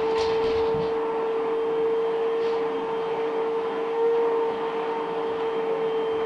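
Vacuum cleaner motor running with a steady, even hum, with a few light clicks in the first second.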